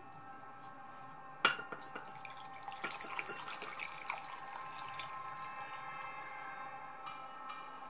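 A sharp knock about a second and a half in, then water poured from a ceramic mug into a cut-glass bowl, splashing for about two seconds and trailing off into drips.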